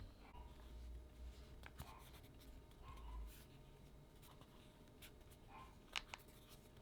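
Faint handling noise from a vinyl figure being turned in the hand: light rubbing and scattered small clicks, with a sharper click about six seconds in.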